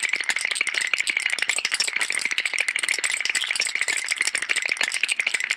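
A rapid, continuous rattle made of many fast clicks, steady in pace and level, starting and cutting off abruptly.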